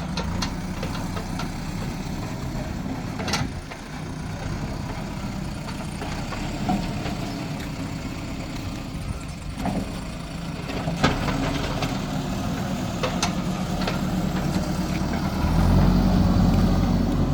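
Diesel engine of heavy construction machinery running steadily, with a few sharp knocks or clanks, and getting louder about three-quarters of the way through.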